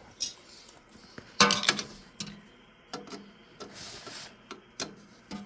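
Scattered metallic clicks and clinks of tools and parts being handled against the metal chassis of an opened signal generator, with the loudest cluster of clatter about a second and a half in and a brief rustle near the end.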